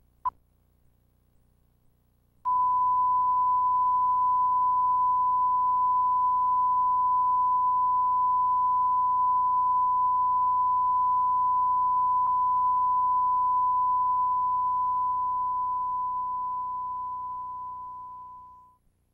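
A short electronic beep, then about two seconds later a long steady pure electronic tone at one pitch, like a test tone, that holds for about sixteen seconds and fades away near the end. A faint low hum lies underneath the tone.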